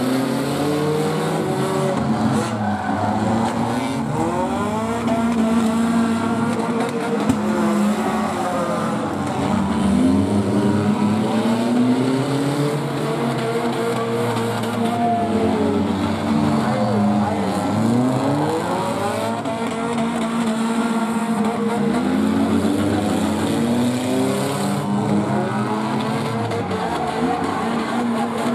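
Several small race car engines running hard around a figure-8 track, overlapping, their pitch rising and falling over and over as the cars accelerate, lift and pass.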